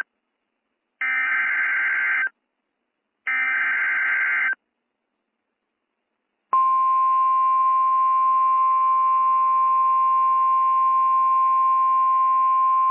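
Emergency Alert System signal on NOAA Weather Radio: two short bursts of SAME digital header data about a second apart, then, after a two-second pause, the steady single-pitch 1050 Hz Weather Radio warning alarm tone begins and holds. The signal announces that a warning, here a severe thunderstorm warning, is about to be read.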